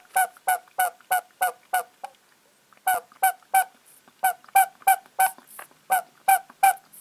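The intake valve of a 12 V car air compressor squeaking in short honks, about three a second, as air is sucked through it by mouth via a hose, with a pause of about a second near the middle. The squeak shows the valve is alive and working.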